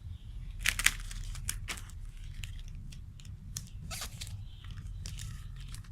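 Sticky tape being pulled off and pressed onto paper, with paper crinkling as it is handled. It comes as several short rasping strokes, the loudest about a second in.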